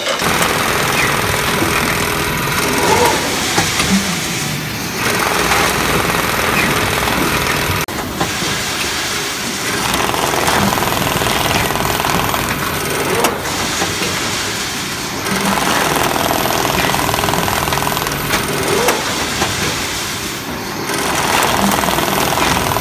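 Industrial bag-closing sewing head on an automatic bag filling line, stitching filled animal feed bags shut with a paper label sewn in. It runs with a fast, dense mechanical rattle in stretches of about four to five seconds, one per bag, with short dips between them.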